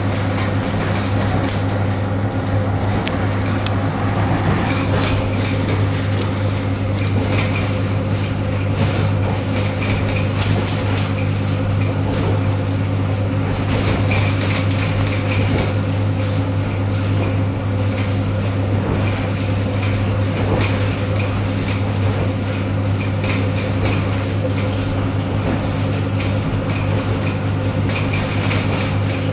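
Inside the car of an ED9M AC electric multiple-unit train under way: a steady low hum with constant rattling and clicking from the moving car.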